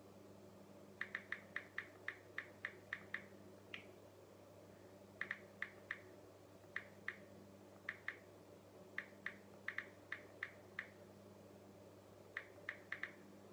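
Smartphone keyboard clicks as someone types with the thumbs: short, light ticks in quick irregular runs of several a second, broken by brief pauses. A steady low hum lies underneath.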